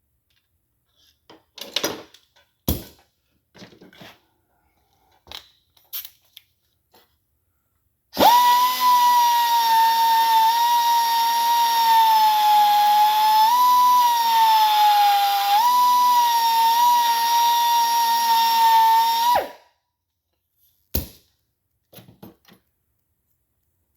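Power drill running steadily for about eleven seconds on a cast-iron engine block during crack pinning, its high whine stepping up briefly twice, then cutting off. Light clicks and taps of hand tools before and after.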